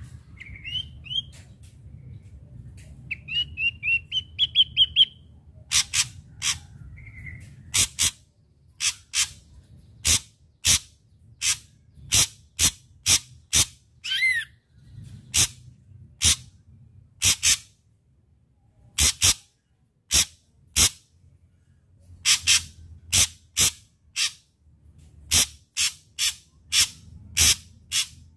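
Ashy drongo singing: a few short rising whistled notes, then a long run of sharp, very brief calls, many in quick pairs, about one or two a second, with one gliding note about halfway through.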